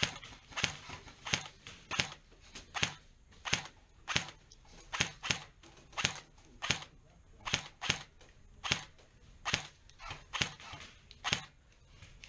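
Airsoft gun firing single shots in steady succession, about two sharp snaps a second.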